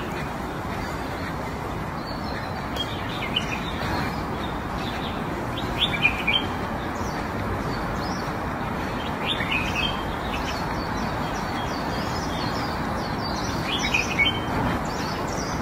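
Small birds chirping in short calls every few seconds over a steady outdoor hiss.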